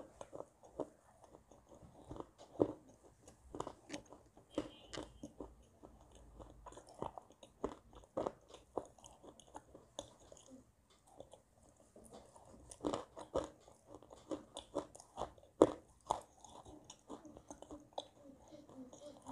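Close-up biting and chewing of a dry, crumbly clay mix: a dense, irregular run of crisp crunches, with a few much louder bites.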